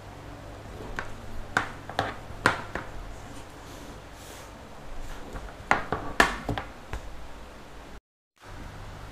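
Handling noise of a stitched leather harness piece with brass D-rings: short clicks and knocks as the rings tap against the cutting mat while the piece is turned over and set down, in two clusters of taps over a steady low hum.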